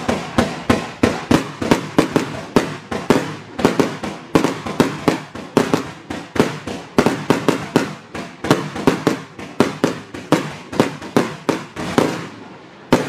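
A 49-shot Black Scorpion 'Willow Mine to Neon Willow' fireworks cake with 30 mm tubes firing in rapid succession, a sharp bang about three times a second. It pauses briefly near the end, then fires a few more shots.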